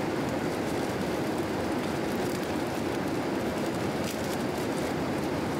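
Steady cabin noise of a Boeing 787 airliner in cruise, a constant rush of air and engine sound, with plastic wrapping crinkling as it is handled and pulled open.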